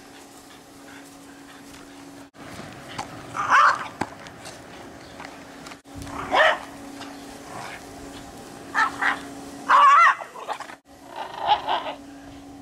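A dog barking and yipping in short calls, first about three and a half seconds in and then several more in the second half, over a steady low hum.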